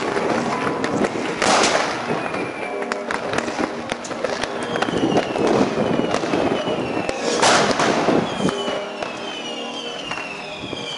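New Year's Eve fireworks going off all around: a dense crackle of firecrackers and bangs, with louder rushing bursts about a second and a half in and again near the eight-second mark. Several whistling fireworks sound in the second half, each whistle falling in pitch.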